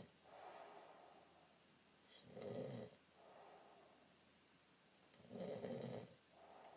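A sleeper snoring in slow, regular breaths: two rasping snores about three seconds apart, each followed by a softer breath.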